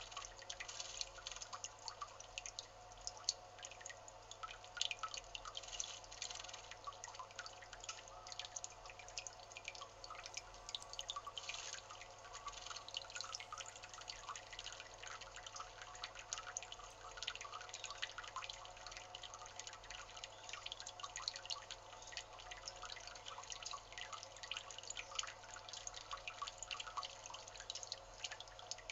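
Water splashing and dripping in a shallow stone bird bath as a male Narcissus flycatcher bathes: a dense, irregular patter of small droplet ticks, fairly faint, over a low steady hum.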